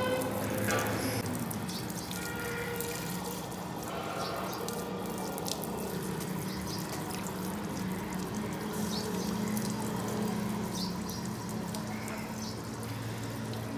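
A jet of water from a hose spraying and splashing over a bare truck differential housing as it is washed out, with a steady low hum underneath.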